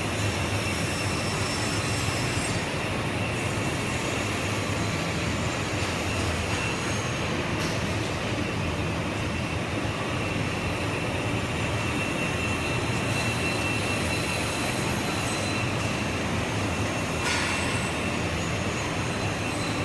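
KTK LGT 340B two-spindle bench drill running: a steady mechanical whir with a thin, high, steady whine.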